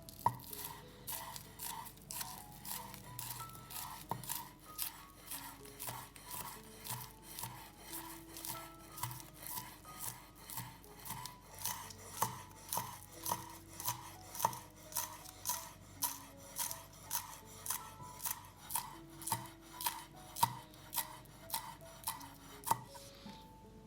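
Knife chopping on a cutting board in even strokes, about two a second, over soft background music.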